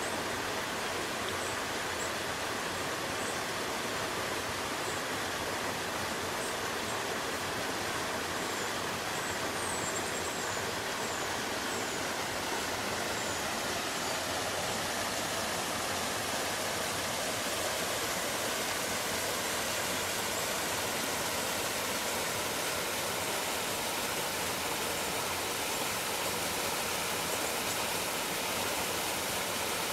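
Mountain stream running steadily over rocks and pools: an even, unbroken rushing of water.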